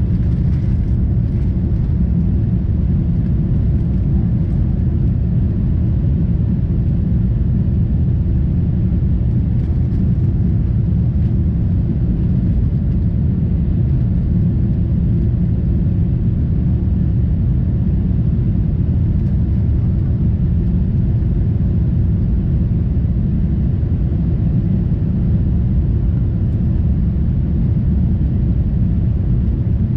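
Steady cabin noise of a Boeing 747-8 airliner in flight: an even, deep rumble of engines and rushing air, heard from inside the cabin at a window seat.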